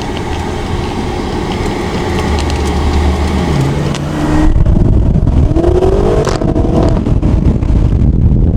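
Car engine running low and steady, then about four and a half seconds in it gets suddenly louder and revs up, its pitch rising as the car accelerates away.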